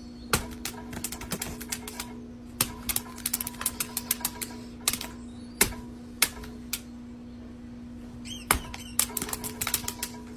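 Irregular sharp clicks and taps, some in quick runs, over a steady low hum, with a brief high chirping about eight seconds in.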